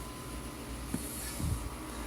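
A few light knocks from steel exhaust pipe bends being handled, over a steady low hum of room noise.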